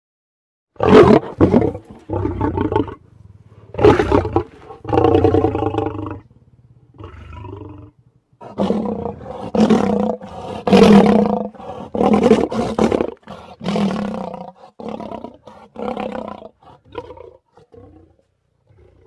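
A lioness roaring: a series of deep, pitched calls about a second apart, the later ones shorter and quieter.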